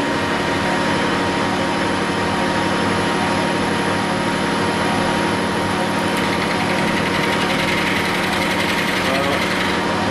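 A 1972 Weiler Matador SV metal lathe starts up and runs steadily, its motor and drive making a steady hum with several held tones as the chuck spins a steel bar.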